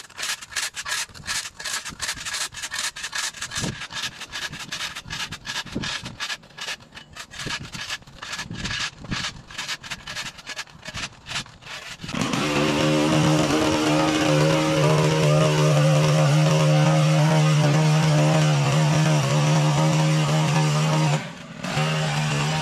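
A long-handled flat blade scraping grass and dirt off a concrete sidewalk in quick repeated strokes. About twelve seconds in, the small engine of a handheld or backpack yard power tool starts up and runs steadily, with a brief drop near the end.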